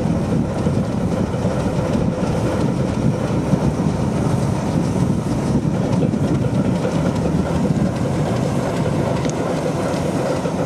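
Diesel engine of a ČKD T669 diesel-electric locomotive running steadily.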